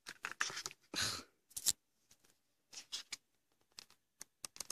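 Paper handling: the album's photobook pages and inserts being flipped and shuffled, a series of short, irregular rustles and light clicks.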